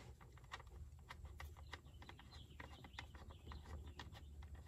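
Near silence with faint, irregular light clicks of a wrench working a drain plug loose under an ATV.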